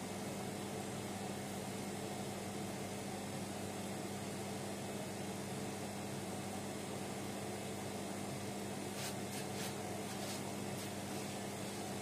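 Hotpoint Ariston front-loading washing machine running in the last minutes of its quick 30-minute wash programme, the drum turning with a steady motor hum. A few faint swishes come about nine to ten seconds in.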